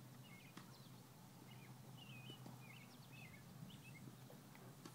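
Faint birds chirping: short, scattered calls every half second or so over near silence.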